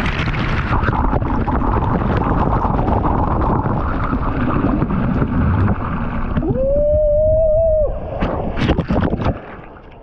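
Water rushing and spraying over a waterproofed action camera as it rides down a water slide, then one long held shout of about a second and a half, and a few sharp splashes as it plunges into the pool.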